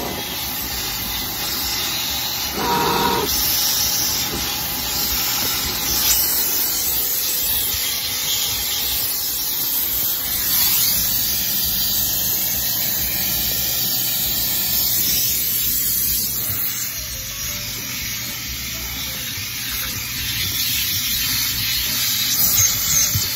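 HART 10-gallon wet/dry shop vacuum running steadily, its hose nozzle being worked over the car's floor carpet.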